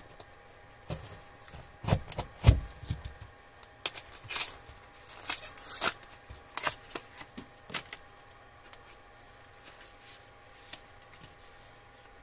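A small cardboard box being cut open with a utility knife and unpacked by hand. Sharp clicks and knocks mix with cardboard and paper rustling; they are loudest about two seconds in and thin out to a few faint clicks in the second half.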